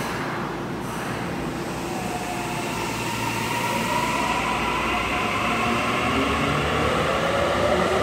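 Tokyu 5080-series subway train pulling out of the station: its traction motor whine, several tones together, rises in pitch as the train accelerates, and the rumble grows steadily louder.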